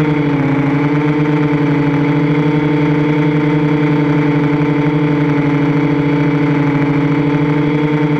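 Multirotor drone (3DR Iris quadcopter) motors and propellers humming steadily as it flies, heard from the camera on the drone itself. The pitch dips slightly about half a second in and then holds.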